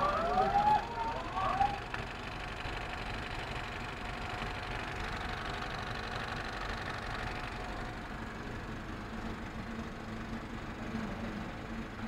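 Cinema film projector running with a steady mechanical whirr. A few brief rising and falling tones sound over it in the first couple of seconds.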